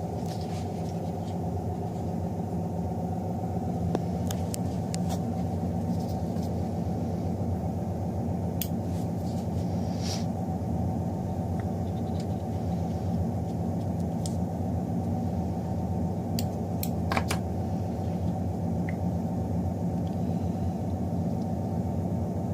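A steady low machine hum, made of several fixed tones, with a few faint sharp clicks scattered through it.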